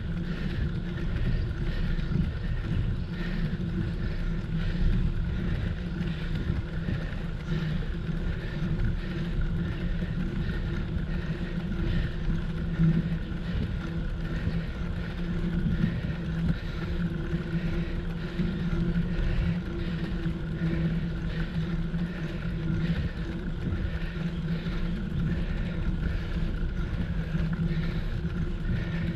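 Wind noise on the microphone of a bicycle-mounted action camera, mixed with the tyre and road noise of the moving bicycle and a steady low hum.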